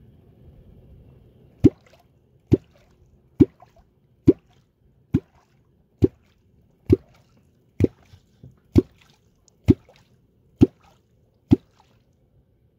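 A fishing clonk struck into the water in a steady rhythm, about one stroke a second, twelve strokes in all, starting a couple of seconds in: the call used to draw wels catfish up to the bait.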